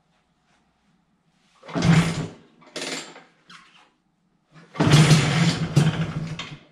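A restored 1983 Vespa PX125E's 177cc two-stroke single being kick-started. A first kick about two seconds in is followed by a longer burst about five seconds in, where the engine sputters for under two seconds and dies: it almost starts.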